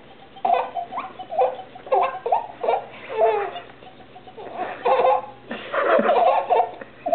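A baby giggling in short bursts while being tickled on the belly, with a lull of about a second midway.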